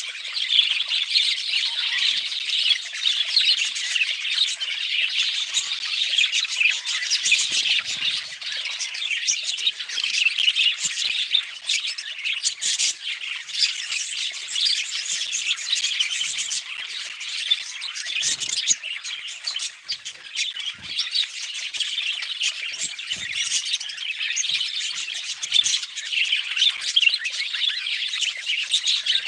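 Pet budgerigars chattering, chirping and squawking without a break.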